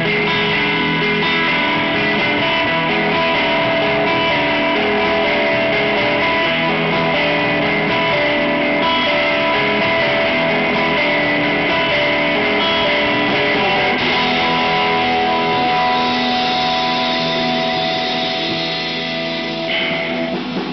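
A live band plays loudly, with electric guitars holding long sustained notes over bass guitar and drums. Nobody sings. The sound thins slightly near the end.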